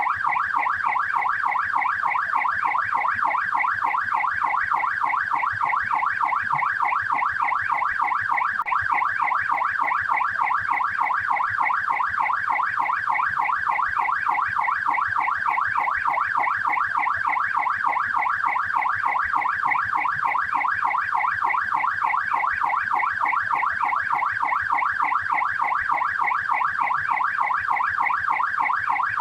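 Australian police car siren on its yelp setting: a rapid up-and-down wail that repeats evenly without a break.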